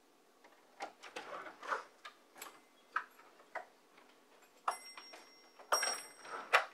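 Apartment front door being unlocked, opened and shut again: a string of clicks, knocks and light metallic rattles from the lock, handle and latch, with the loudest knock near the end as the door closes.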